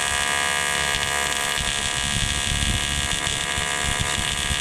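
AC TIG welding arc on aluminum from a YesWelder TIG 250P AC/DC, a steady buzz with a hiss that holds without a break.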